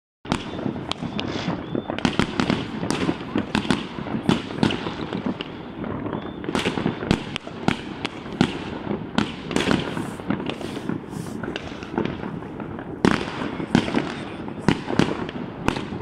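Many fireworks and firecrackers going off at once, a dense, constant crackle of bangs over a low rumble, with a few sharper, louder reports standing out above the rest.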